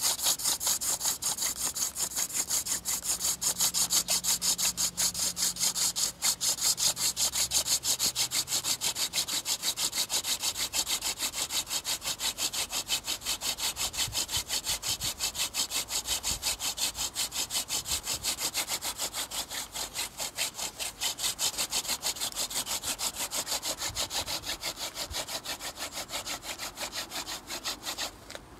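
Hand-drill friction fire: a wooden spindle spun back and forth between the palms, grinding in the notch of a wooden hearth board with rapid, even rubbing strokes, several a second. The drilling builds an ember and stops abruptly near the end.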